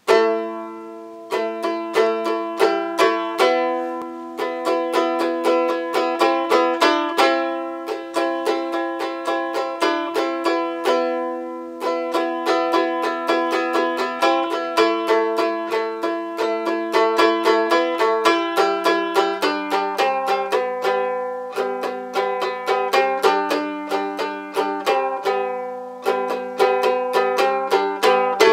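Trossingen lyre played by block and strum: one hand strums across the strings in a steady run of quick strokes, while the fingers of the other hand damp the unwanted strings. Each strum rings out a chord of a few open notes, and the chords change as the blocking fingers move.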